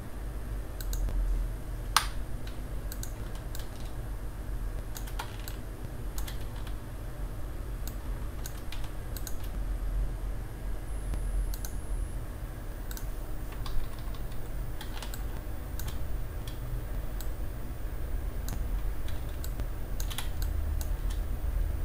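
Irregular clicks of a computer keyboard and mouse, a few at a time with short gaps, one sharper click about two seconds in, over a low steady hum.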